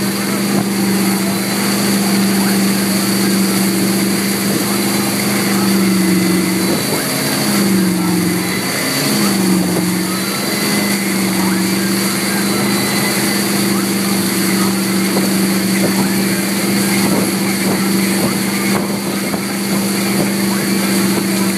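Tow boat's engine running at a steady drone, its pitch dipping and recovering briefly about seven to ten seconds in. The rush of churning wake water runs underneath.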